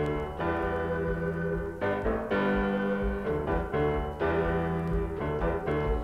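Instrumental intro of a 1965 pop single played from a 45 rpm vinyl record: sustained chords that change every couple of seconds.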